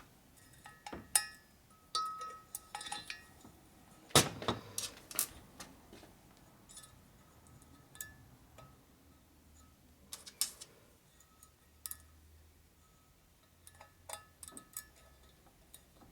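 Small steel valve-train parts (valve keepers and spring retainers) clicking and clinking as they are handled and fitted on a valve, in scattered sharp clicks with the loudest about four seconds in.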